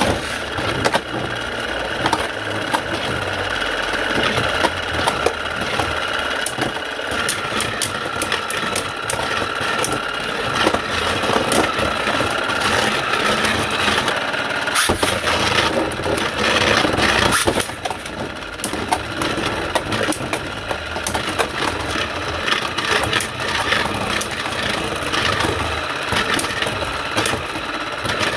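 Motor of a Beyblade Burst Surge Motor Strike stadium turning the center spinning disc with a steady, really loud whine. Two Beyblades rattle and click against each other and the plastic stadium as they spin.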